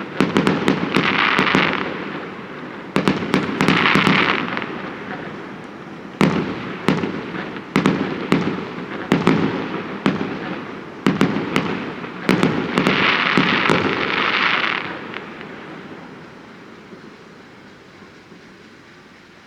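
Fireworks going off: repeated sharp bangs of bursting shells, with stretches of hissing crackle, tailing away over the last few seconds.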